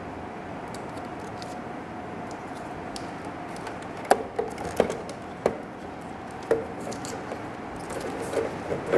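Plastic parts of a Chevy Silverado/GMC Sierra side mirror clicking and knocking as the mirror glass holder and its wiring are handled against the housing: about seven short clicks, starting about four seconds in, over a steady low hum.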